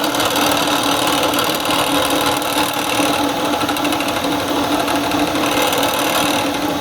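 Milling machine running steadily while drilling a detent hole in a puzzle-box part, a constant motor and spindle hum.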